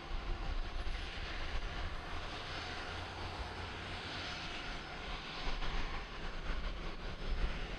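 Aircraft engine noise: a steady rush over a low rumble, swelling slightly midway.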